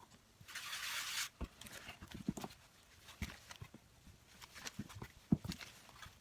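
Hands kneading flour dough on a board: irregular dull thumps and pats as the dough is pressed and turned, with a short rustling hiss about half a second in.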